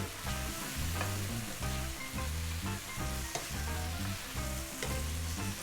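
Beef strips, vegetables and satay sauce sizzling in a hot pan as they are stirred together. Background music with a steady bass beat plays under it.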